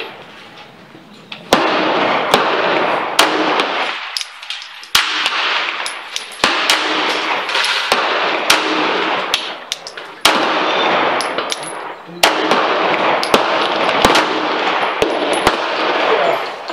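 Gunshots at a shooting range: many sharp cracks at irregular intervals, some in quick strings, over a loud rushing noise that cuts in and out several times.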